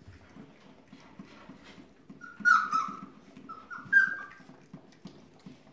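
Keeshond puppies whimpering with short, high, slightly falling whines, the loudest about two and a half seconds in and a few more around four seconds in, over the steady smacking and lapping of the litter eating mash from a stainless steel feeding saucer.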